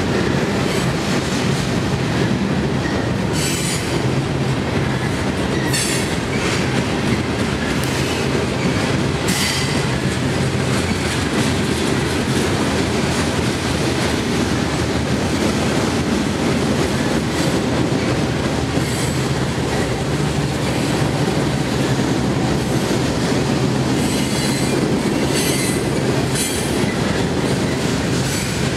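Freight train cars of mixed types (tank cars, boxcars, covered hoppers) rolling past on steel wheels: a continuous heavy rumble of wheels on rail. Short high-pitched bursts break through a few times, most often near the end.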